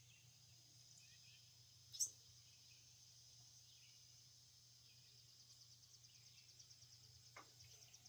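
Faint insect chorus: a steady high buzz that turns into rapid pulsing trills in the second half, over a low hum. One sharp high chirp about two seconds in.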